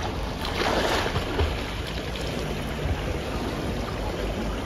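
Pool water splashing and lapping as a man swims breaststroke, loudest about half a second to a second in, over a steady low rumble.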